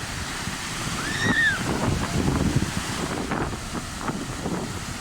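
Sea surf washing on the shore, with wind buffeting the microphone. About a second in there is a short high call that rises and falls.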